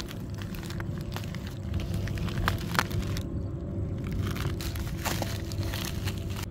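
Plastic courier mailer bag crinkling and being torn open by hand as a cardboard box is pulled out, with several sharp crackles spread through it over a steady low rumble.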